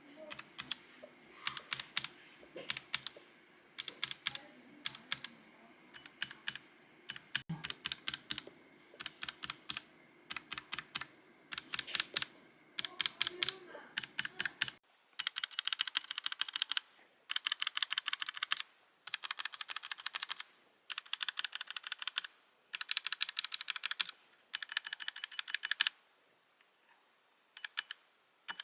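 Typing on a NuPhy Air96 low-profile mechanical keyboard: quick runs of keystroke clacks in bursts, separated by short pauses.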